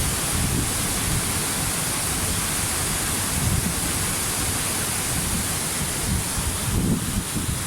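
Waterfall: a steady rush of falling water, with an uneven low rumble beneath it.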